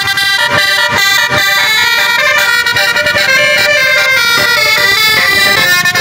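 Bus 'telolet basuri' multi-tone air horn playing a melody, its notes changing in quick steps, with a run of short thumps beating under it.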